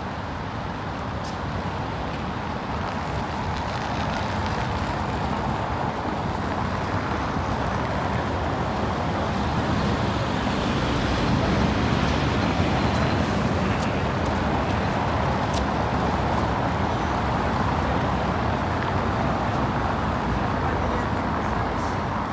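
Steady city road traffic noise from passing cars, swelling a little louder around the middle.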